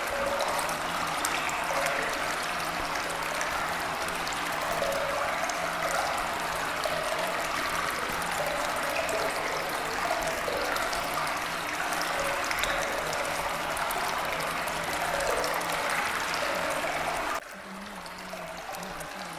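Steady ambience of running water, like a flowing stream. Near the end it drops suddenly quieter and changes character.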